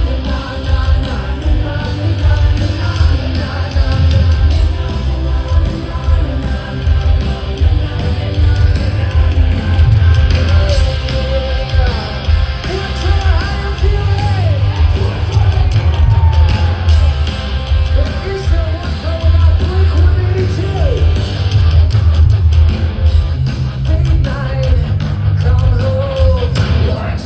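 Loud live rock band playing through a festival PA, with heavy bass and drums, guitar, and singing and yelling vocals. The music dips in level near the end.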